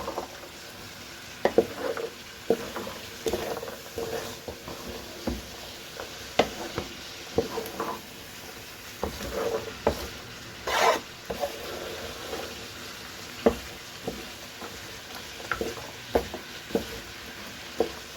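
Vegetables sizzling in a frying pan while a spoon stirs them, knocking and scraping against the pan at irregular intervals, with one longer scrape about eleven seconds in.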